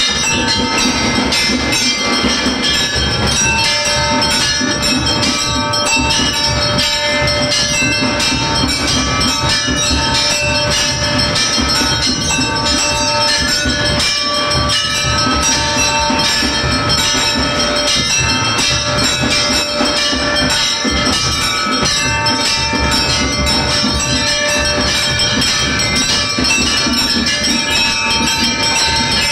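Temple bells ringing loudly and without pause for a lamp aarti: rapid strikes over a steady ringing clangor.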